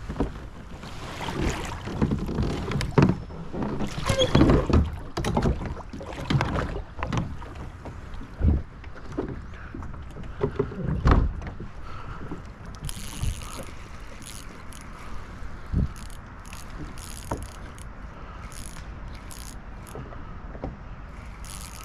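A kayak paddle and gear knocking and bumping against a fishing kayak's hull, irregular and loudest in the first half. After that comes a run of short, high-pitched bursts.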